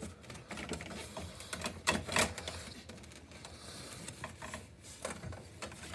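A string of small clicks and knocks, with a couple of sharper clacks about two seconds in: dishes and plates being handled and set down.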